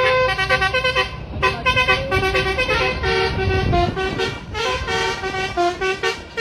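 Telolet-style multi-tone bus horn playing a rapid tune of short notes that step up and down in pitch, over a low rumble.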